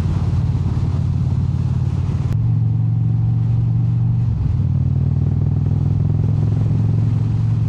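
Indian Super Chief Limited's V-twin engine running steadily while riding, with road and wind noise. The high hiss drops about two seconds in, and the engine note breaks briefly about four and a half seconds in.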